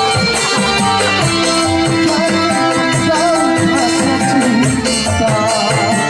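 Live band music through a PA: electric keyboard and kendang hand drums keeping a steady beat, with a man singing into a microphone.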